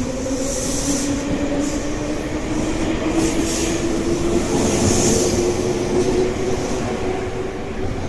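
An electric train running on the rails: a steady motor whine climbs slowly in pitch as the train gathers speed, over rolling track noise.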